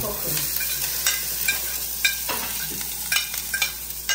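Diced peppers and vegetables sizzling in oil in a frying pan over a gas flame, a steady hiss. A spoon stirring them clinks and scrapes against the pan several times.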